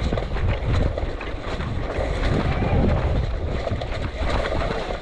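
Wind buffeting a small camera microphone, a heavy uneven low rumble, with a few faint clicks.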